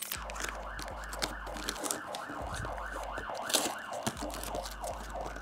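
Police-style siren sound effect, a fast yelp rising and falling about three times a second.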